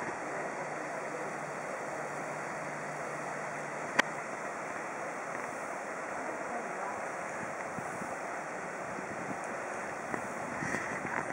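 Steady rushing of shallow river rapids over rocks. There is a single sharp click about four seconds in, and a few brief louder noises near the end.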